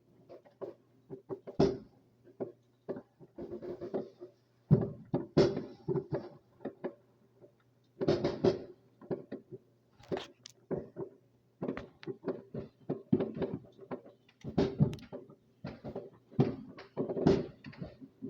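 Fireworks going off: a rapid, irregular series of pops and bangs, several a second, without letting up.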